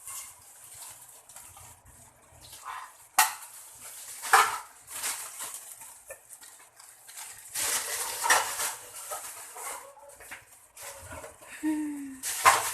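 A metal utensil clinking and scraping against a cooking pan as the mushroom sauce is stirred, with a few sharp clinks and longer stretches of scraping.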